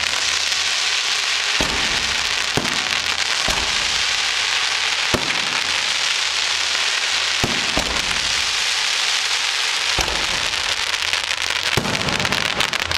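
Aerial fireworks display: a dense, continuous crackle of bursting shells, with about seven deeper bangs spaced one to two seconds apart as further shells go off.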